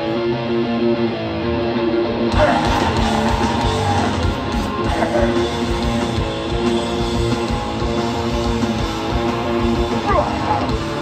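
Hardcore punk band playing loud and live, with distorted electric guitar to the fore. The sound gets fuller and harder about two seconds in.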